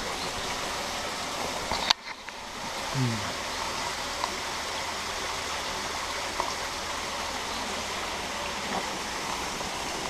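Steady rushing of a small mountain stream and waterfall over rocks. It dips suddenly about two seconds in and builds back, with a brief low voice sound near three seconds.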